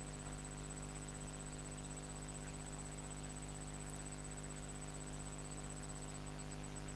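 Steady electrical hum with a faint even hiss and a thin, quickly pulsing high-pitched whine: the recording's own background noise, with no other sound.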